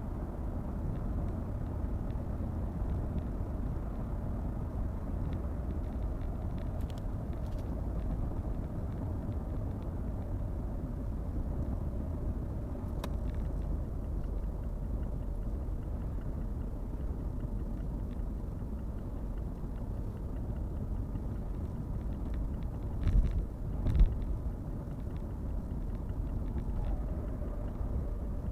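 Steady road and engine noise of a car being driven, with two thumps about 23 and 24 seconds in.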